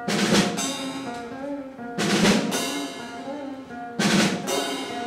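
A small band playing an instrumental intro: a drum kit's cymbal and bass drum strike together once every two seconds, each crash ringing out, over a melody of held keyboard notes.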